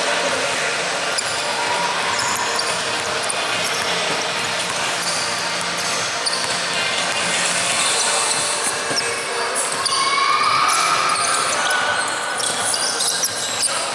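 Basketball game in an echoing gym: the ball bouncing on the court with many short knocks, and a few short squeaks about ten seconds in.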